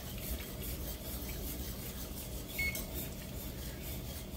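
Wire whisk scraping and swishing against the bottom of a stainless steel skillet, stirring a thin gravy.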